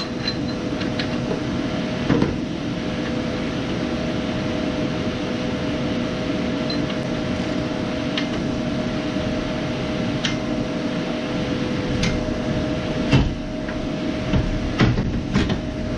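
A steady machine hum with two even tones throughout, with a few scattered metallic clicks and knocks from a wrench working the oxygen sensor loose from the exhaust.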